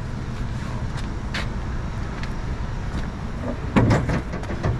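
Steady low outdoor rumble of wind and traffic, with a few short knocks and clatters; the loudest come about four seconds in.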